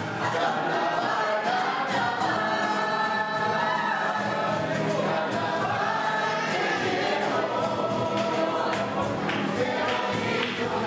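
Music: a group of voices singing a song together, with sharp percussive strikes throughout.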